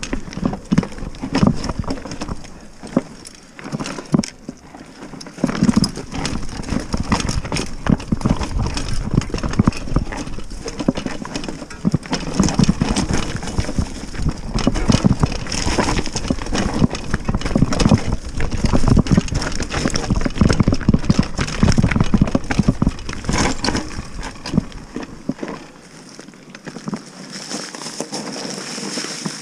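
Mountain bike descending a rough downhill trail: a steady clatter of knocks and rattles from the bike over rocks and roots, with tyre and trail rumble underneath. The low rumble drops away for the last few seconds.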